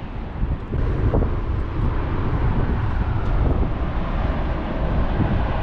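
Steady roar of water jetting from Roosevelt Dam's outlet into the Salt River, mixed with wind buffeting the microphone; it grows louder about a second in.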